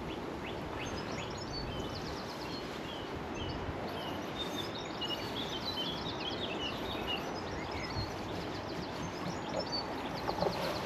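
Small songbirds chirping and trilling in short, repeated phrases over a steady rushing background noise.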